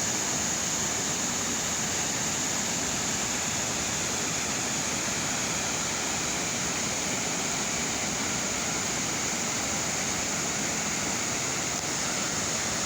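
Waterfall pouring steadily: a constant, even rush of falling water with no breaks.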